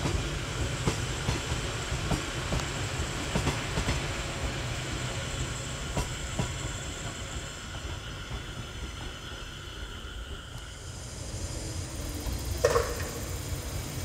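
Train running on the line, its wheels clicking over rail joints over a steady rumble; the clatter grows quieter through the middle. A brief high squeal comes near the end.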